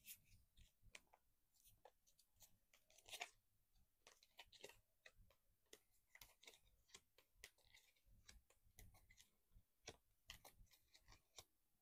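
Faint handling noise from tarot cards being shuffled and laid out: scattered soft rustles and light clicks, irregular and unhurried, with one slightly louder rustle about three seconds in.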